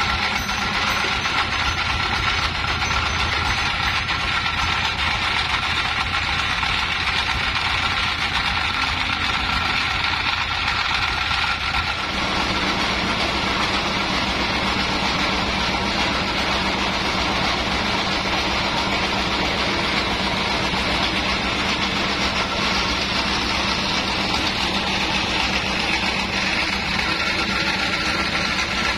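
Sawmill bandsaw machinery running steadily, with a constant high whine over the machine noise. About twelve seconds in, the sound becomes fuller in its middle range.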